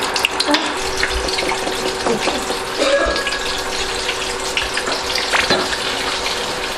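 Chicken pieces deep-frying in a pot of hot oil: a steady sizzle with frequent crackling pops.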